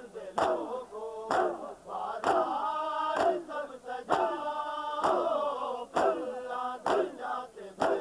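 A crowd of men chanting in unison while beating their chests with their palms together, a sharp slap about once a second: Shia matam, rhythmic chest-beating in mourning.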